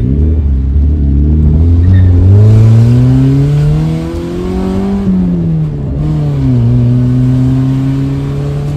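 Maruti Esteem's engine revving loud: the engine note holds low, climbs for a few seconds, drops about five seconds in, then climbs slowly again.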